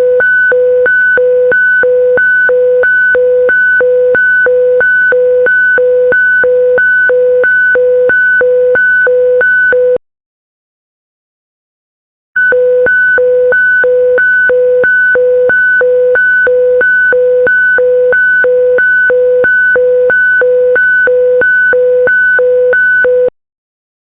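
Emergency alert alarm tone: a loud, even beeping of a low and a high tone together, about one and a half beeps a second. It stops for about two seconds, starts again for another ten seconds or so, and cuts off suddenly near the end.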